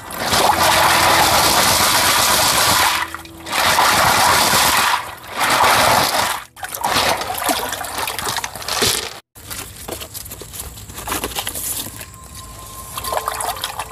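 Water splashing and sloshing as a bamboo basket of blood cockles is swished back and forth in a running stream, in three loud bursts over the first six seconds. After that the stream's rushing and trickling is quieter and steadier, with two brief dropouts.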